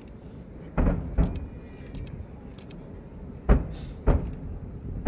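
Fireworks shells bursting: four deep booms in two pairs, each with a short rumbling tail, and a faint crackle between the first pair and the second.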